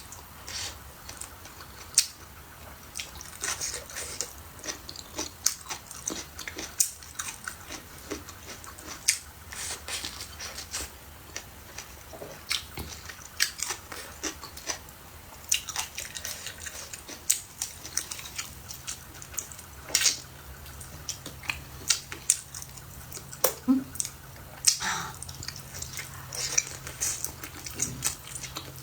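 Eating sounds from a meal of meat and noodles: chewing and biting, with frequent irregular clicks of utensils against dishes.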